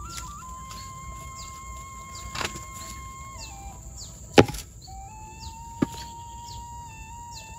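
Sharp knocks of cut rubber-tree logs being handled and dropped: a lighter one, then a loud one about four and a half seconds in, then another short one. A slow background melody of long held notes plays throughout, over a steady insect buzz.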